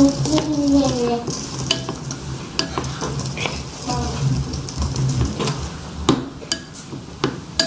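A wire whisk stirring melted chocolate and butter in a stainless-steel bowl, with irregular clinks of metal against metal.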